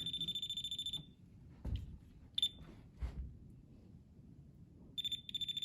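Non-contact voltage tester beeping in a fast high-pitched chirp for about the first second, once briefly a couple of seconds in, then in broken bursts near the end. The owner takes it to be picking up the live service cable coming in from the street, not the new outlet.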